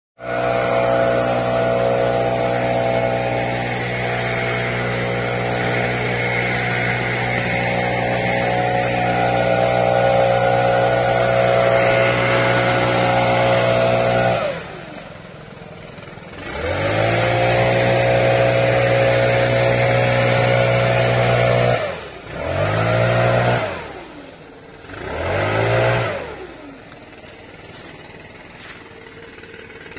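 Small petrol engine held at high revs, then throttled down and revved back up several times, settling to a low idle near the end.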